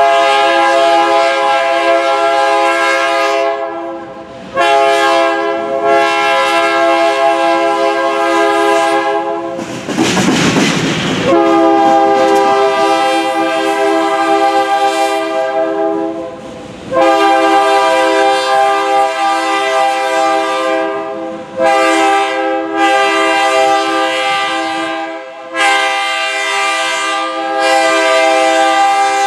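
Air horn of a GE C30-S7 MP diesel locomotive sounding a chord of several tones in a string of long blasts with short breaks: the warning for a road grade crossing. About ten seconds in there is a brief pause in the horn, filled with rumbling noise.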